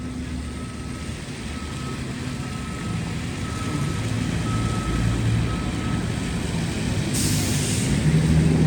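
Heavy vehicle engine running in city street traffic, growing louder as it comes closer, with a faint broken beeping tone for the first several seconds and a short hiss of air about seven seconds in, as from an air brake releasing.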